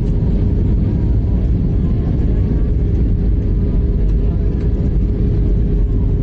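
Steady cabin noise of an Airbus A320-family jet airliner on descent, heard inside the cabin: a deep, even rumble of engines and airflow with a faint steady hum in it.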